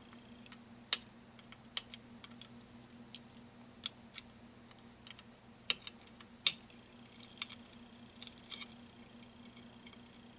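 Flush cutters snipping the excess wire leads of soldered components on a circuit board: about half a dozen sharp, irregularly spaced snips, with lighter clicks between them, over a faint steady hum.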